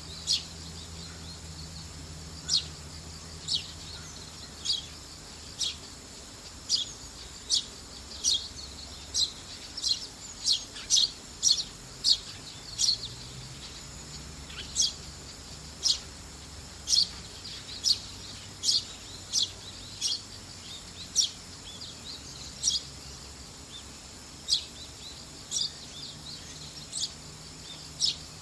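Juvenile Eurasian tree sparrow giving short, sharp chirps, one at a time at irregular intervals of about a second.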